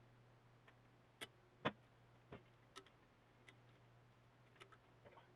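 Small parts being handled: a handful of faint, scattered clicks and light taps over near silence, the strongest nearly two seconds in, with a faint steady low hum underneath.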